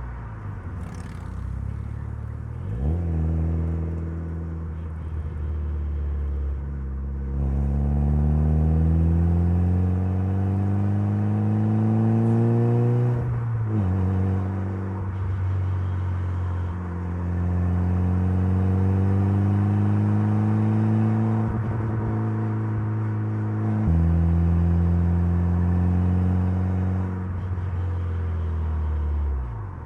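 Mitsubishi Lancer Evolution's turbocharged 4G63 inline-four pulling hard, revs climbing steadily, then dropping abruptly at a gear change about halfway through and climbing again. Near the end the revs drop once more and the engine note falls away as the driver lifts off.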